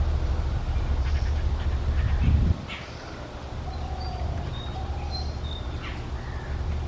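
Jungle babblers giving harsh, scratchy chattering calls, with a few short high notes in the middle. A steady low rumble underneath cuts off suddenly about two and a half seconds in.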